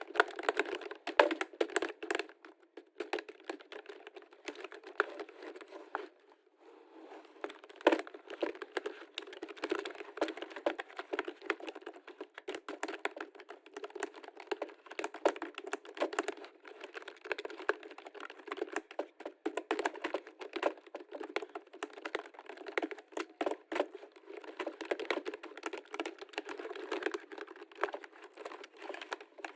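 Typing on a computer keyboard: a dense run of quick key clicks, with a short pause about six seconds in.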